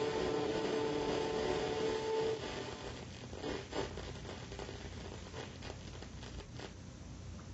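A held chord of background music ends about two seconds in, leaving low hiss with a few faint clicks.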